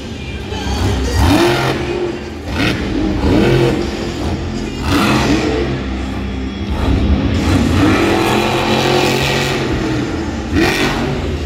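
Monster truck's supercharged V8 revving hard again and again, the pitch climbing and falling with each burst of throttle, over arena music.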